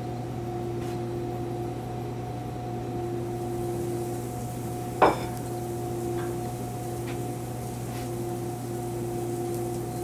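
Steady hum of commercial kitchen equipment with two constant tones, and about halfway through a single sharp clink of a plate being set down, followed by a few faint clicks of handling.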